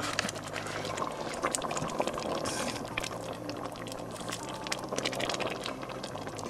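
Thick lentil stew simmering in a stainless steel pot, its bubbles popping in irregular small clicks, while a wooden spoon stirs and lifts it.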